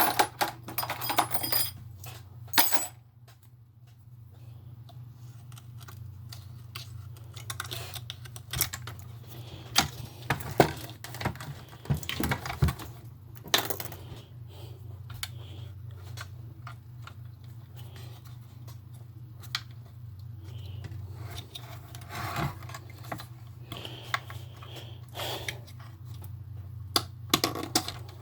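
Small parts of a toy RC car being handled and pressed into place: irregular sharp clicks, taps and rattles, over a steady low hum.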